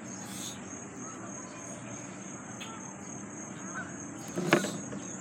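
Insects trilling steadily in a high, even, pulsing line, with a single short sharp knock about four and a half seconds in.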